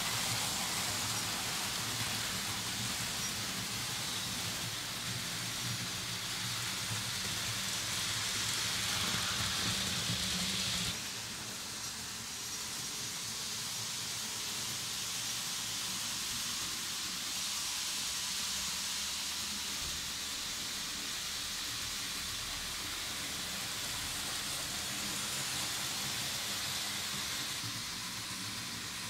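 Märklin H0 model trains running on metal M-Track: a steady rumble of wheels on the three-rail track with a low motor hum, dropping suddenly quieter about eleven seconds in.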